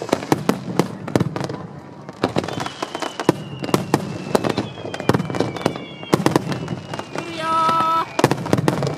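Fireworks bursting in quick succession over the sea, a dense run of sharp bangs and crackles with thin whistles that fall slowly in pitch. A short steady tone sounds near the end.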